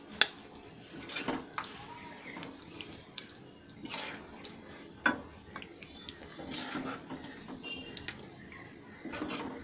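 Metal spoon scraping and knocking against an iron kadai as thick chicken curry is scooped out and dropped with wet plops into a ceramic serving bowl, in scattered scrapes and clinks every second or two.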